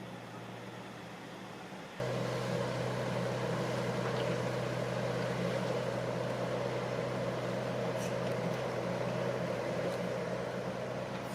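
Heavy diesel engine of construction machinery running steadily, jumping louder about two seconds in and holding there.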